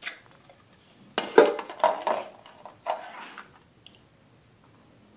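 Plastic cups being handled on a countertop: a single click at the start, then a cluster of knocks and clatters about a second in that lasts a couple of seconds, and one small click near the end.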